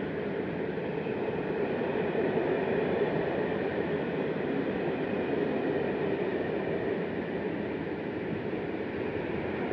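A freight train of open-top coal wagons rolling past: the steady, even noise of steel wheels running on the rails.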